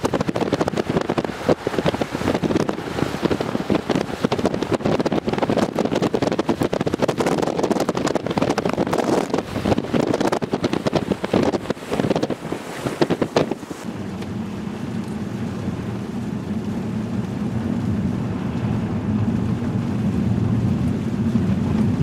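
Blizzard wind buffeting the microphone in hard, gusty blasts. About fourteen seconds in it cuts to lighter, steadier wind noise over a low, even engine drone.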